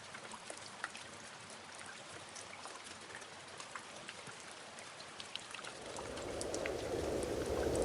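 Steady patter of rain, many small drops crackling over a soft hiss. From about six seconds in, a louder rushing of water swells up.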